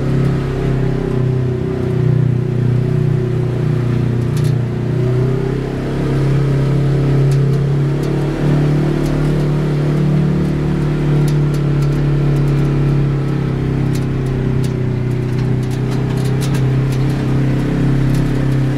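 Polaris RZR side-by-side's engine running steadily under way, heard from inside the cab, its pitch rising and falling a little with the throttle. Scattered light ticks and rattles come in over the second half.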